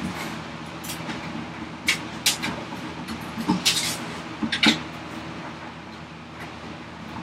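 Several sharp knocks and taps of hand tools and a wooden workpiece on a workbench, scattered through the first five seconds, over a steady low hum.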